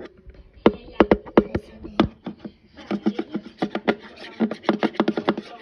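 A plastic toy wand knocking and tapping against the inside of a plastic toy cauldron: a few scattered knocks, then a quick irregular run of them from about halfway.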